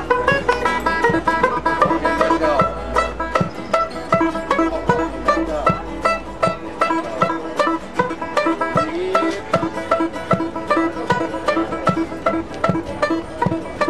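Banjo and acoustic twelve-string guitar playing a blues-skiffle tune together on a steady, even beat, with quick plucked banjo notes over the strummed guitar and no singing.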